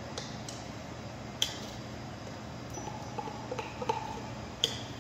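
Steady low background hum with two sharp metallic clinks, about a second and a half in and near the end, as a tin can of condensed milk is tipped over a stainless steel stock pot; a few faint pings in between.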